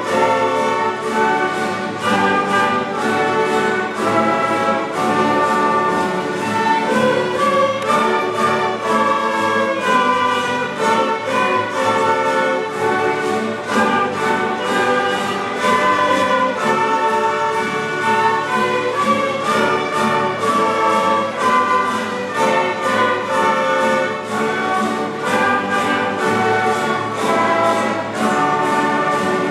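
Mandolin-and-guitar orchestra with violins and flutes playing a melody together, the plucked and strummed strings keeping a steady rhythm under the bowed and blown notes.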